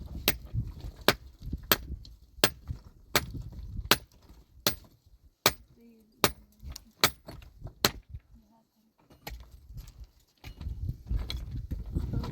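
A series of sharp knocks, about one every three-quarters of a second, coming faster for a moment and then pausing around eight seconds in before resuming.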